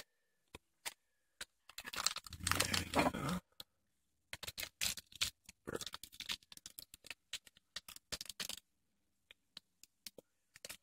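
Adhesive tape pulled off and handled: a scratchy tearing sound for about a second and a half, then a run of small crackles and clicks as the tape is pressed around a refilled firework shell, thinning to a few ticks near the end.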